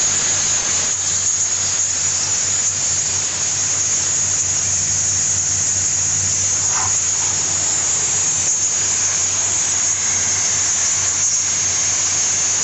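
Compressed air hissing steadily from a 3/4-inch hose with a PVC pipe on the end, wide open and blowing chaff out of a hay baler, over a steady low hum.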